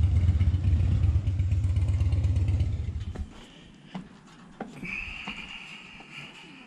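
Wind buffeting the microphone as a loud, irregular low rumble that drops away sharply about three seconds in. After it come a few faint taps and a thin, steady high tone.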